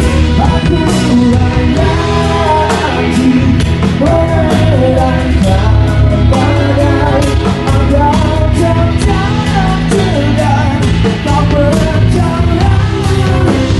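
Rock song at full volume in an instrumental break: a wandering melodic lead line over drums and bass.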